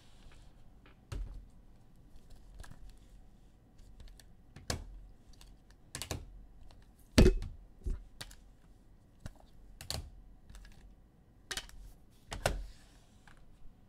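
Hard plastic trading-card holders (top loaders, magnetic holders and graded slabs) clicking and clacking against one another and the table as cards are sorted and stacked. Scattered sharp clicks, the loudest about seven seconds in.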